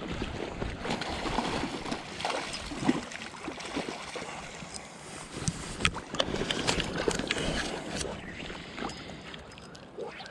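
Shallow river water sloshing and splashing around a wader's legs and a landing net pushed through the water, with scattered small knocks and clicks.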